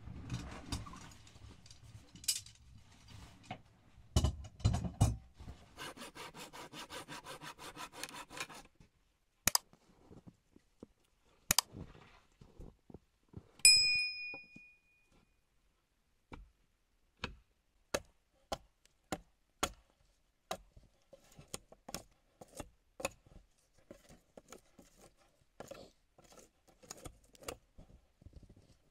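Hand tools working on a wooden door: a quick, even run of rasping strokes, a single sharp metallic ding just before the middle, then a long series of sharp knocks and scrapes, one or two a second.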